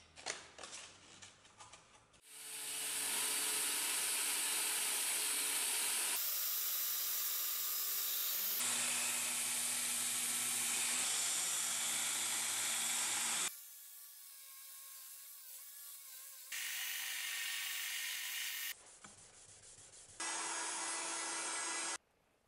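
Clicks and knocks as an abrasive belt is fitted on a belt grinder, then the belt grinder running with a cleaver's steel edge pressed against the belt, grinding the bevel of the cutting edge. The steady grinding noise changes abruptly in level and pitch several times and stops suddenly near the end.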